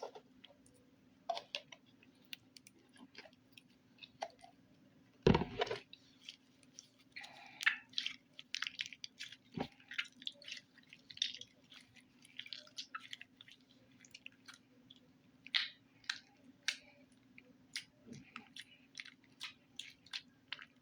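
Slime being squeezed and kneaded by hand: irregular wet squishes and small crackling clicks, with one louder thump about five seconds in. A faint steady hum runs underneath.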